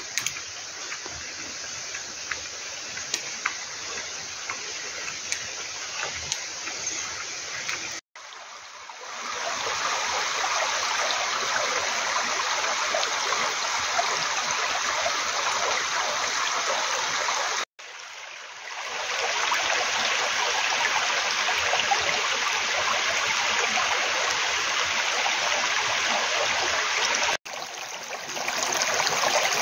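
Shallow mountain stream running over and between granite boulders: a steady rush and trickle of water, quieter for the first several seconds and louder after that, broken off by three short gaps.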